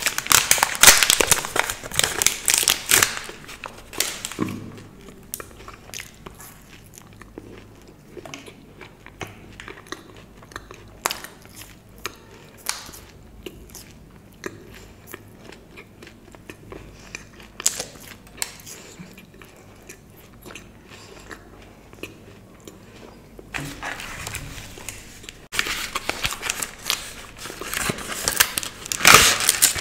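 Plastic chocolate wrapper crinkling and tearing as it is opened. Then come bites and chewing of the chocolate, with scattered crunches. Near the end there is more crinkling and rustling of packaging as a chocolate box is opened.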